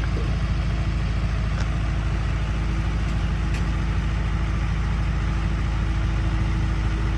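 Heavy diesel engine of a bulldozer or dump truck running steadily at constant speed, with a faint steady whine over it and a couple of light clicks.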